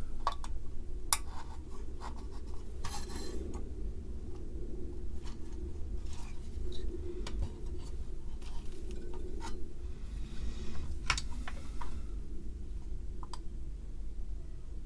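Scattered small clicks and brief scrapes from a printed circuit board and capacitor leads being handled, pressed in and turned over on a workbench, over a steady low hum.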